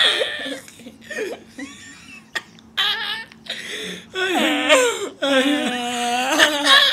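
A boy laughing and shrieking, with long, wavering drawn-out yells in the second half.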